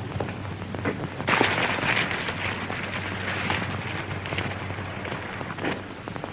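Hiss and crackle of an old 1930s film soundtrack over a steady low hum, with scattered clicks and a louder burst of noise about a second in.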